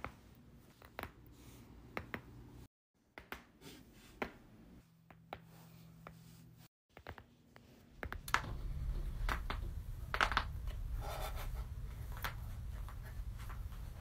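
Human joints cracking: scattered sharp pops and clicks, a few louder than the rest. About eight seconds in, a steady low room background comes up under more pops.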